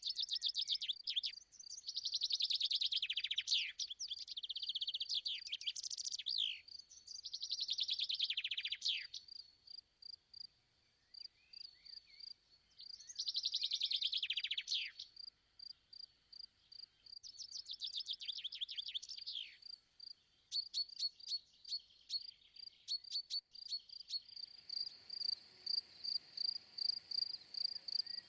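Birds singing in rapid trilled phrases, each a second or two long and a few seconds apart, over a steady fast chirping of crickets. The birdsong stops about two-thirds of the way through, leaving the crickets and a faint hiss.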